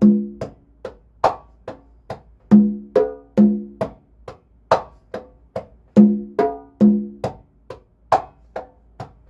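A pair of congas played by hand in a slow bachata 'derecho' pattern, repeating about every three and a half seconds. Heel, fingertip and muted slap strokes on the high drum mix with ringing open tones on the low drum.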